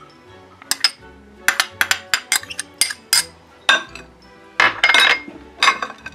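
Metal spoon clinking against a glass bowl as sliced green olives are scraped into tuna: a run of sharp, irregular clinks, several close together around the middle.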